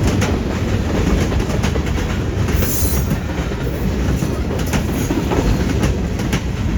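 Freight train rolling past: a steady low rumble with the wheels clacking over the track, and a brief high-pitched wheel squeal about two and a half seconds in.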